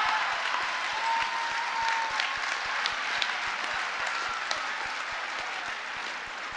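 A large audience applauding and laughing at a joke. The applause slowly dies down.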